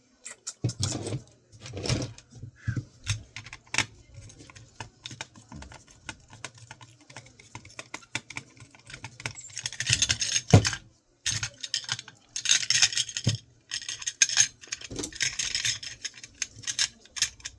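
Small clicks, taps and rattles of hard drive parts being handled and pried apart, with several stretches of scraping in the second half.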